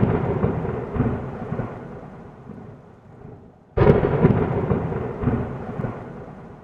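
Thunderclap sound effect played twice. It opens with a sudden crack, and a rolling rumble fades away over the next few seconds. The same crack-and-rumble comes again about four seconds in.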